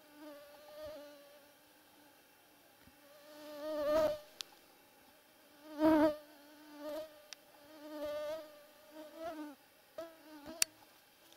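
Mosquitoes whining close to the microphone, a wavering hum that swells and fades as they fly past, loudest about four and six seconds in. A single sharp click comes near the end.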